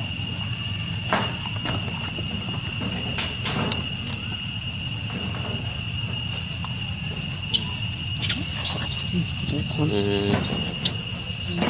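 Steady drone of insects, several constant high tones at once. In the last few seconds, short high squeals and a brief pulsed call from the macaques come over it.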